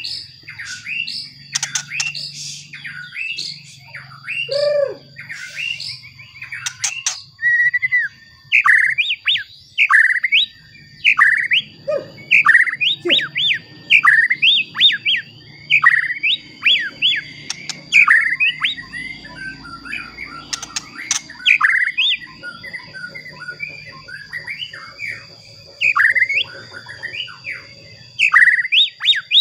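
White-rumped shama singing: a varied run of whistled phrases for the first several seconds, then a long series of sharp, sliding notes, about two a second. A thin, steady high tone runs underneath.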